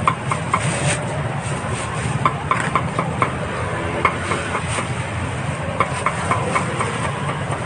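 Meat cleaver chopping meat on a chopping block in quick runs of sharp strokes, about four a second, stopping and starting several times over steady street noise.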